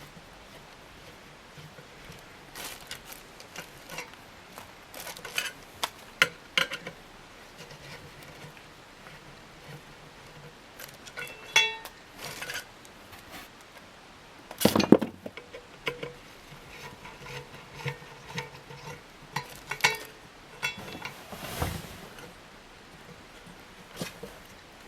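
Scattered clicks, knocks and short ringing clinks of metal ceiling-fan parts and screws being handled, with a louder clatter about fifteen seconds in.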